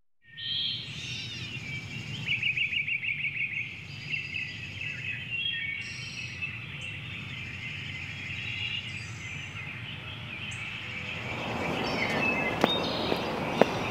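Outdoor ambience of birds chirping, with a rapid trill about two seconds in, over a low steady rumble. Near the end a broader hiss of outdoor noise swells and two sharp clicks sound.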